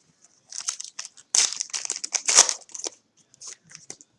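Foil wrapper of a trading card pack crinkling and tearing as it is opened, a dense run of crackly rustles lasting about two seconds, then a few light ticks.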